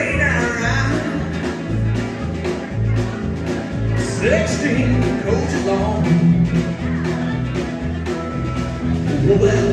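Live rock-and-roll band playing with electric guitars, electric bass and a drum kit keeping a steady beat. A male singer's vocal phrases come in at the start, about four seconds in and again near the end.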